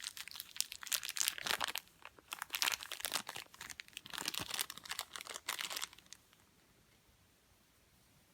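Packaging crinkling and crunching in irregular handfuls as watch parts are unwrapped, stopping about six seconds in.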